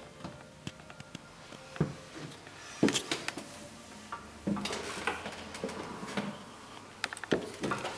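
Irregular knocks, thumps and rustling of footsteps on an indoor staircase and a handheld camera being jostled, a few louder knocks a second or so apart.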